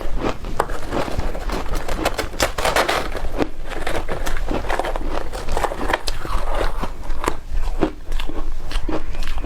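Close-up crunching and chewing of shaved ice with milk powder: a dense, irregular run of crisp crackles and crunches.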